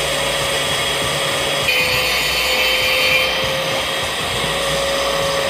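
Angle grinder running steadily with a constant motor whine, working on the steel tubing of a minibike frame; from about two to three seconds in the sound turns harsher and brighter as the disc bears on the metal.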